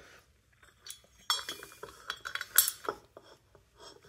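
Small ratchet wrench working the bolts of a Polaris Sportsman 570 ATV brake disc, giving scattered metal clicks and clinks. One clink about a second in rings briefly.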